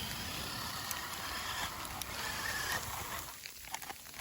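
RC truck's electric motor running with its wheels spinning in snow: the truck is stuck, tires digging. The sound drops away about three seconds in.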